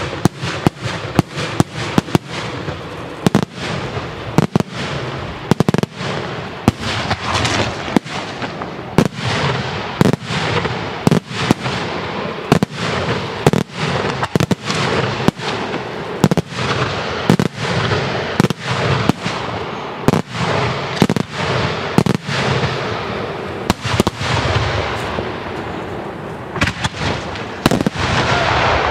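Daytime aerial fireworks shells bursting overhead in a rapid, continuous barrage of loud bangs, often one or two a second, with echoing reports filling the gaps between them.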